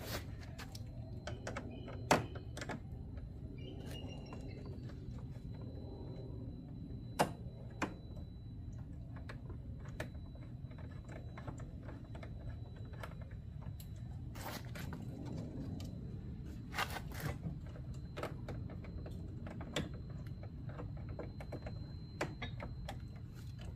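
Irregular clicks, taps and knocks of parts and tools handled while fitting a light-bar frame and its fasteners behind a van's front grille, a few sharper knocks among them, over a steady low hum and a faint steady high tone.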